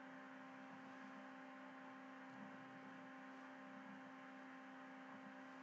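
Near silence: a faint, steady electrical hum in the recording.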